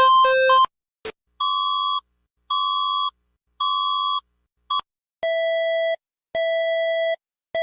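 Electronic emergency alert tones: a fast warbling two-note alarm cuts off, then after a click come three short, evenly spaced beeps and, after another brief blip, three longer beeps at a lower pitch.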